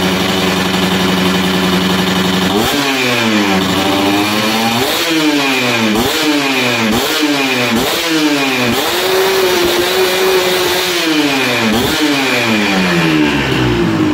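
Yamaha 125Z two-stroke engine idling steadily, then, from about two and a half seconds in, revved in a string of quick throttle blips, each falling back, with the revs held up for about two seconds near the middle. The throttle is being blipped to check the carburettor's main-jet setting by how fast the revs drop; the owner judges the cylinder block noisy and due for a rebore.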